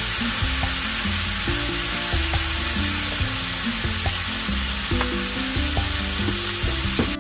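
Food sizzling steadily in hot oil in a frying pan, a dense crackling hiss, over soft background music.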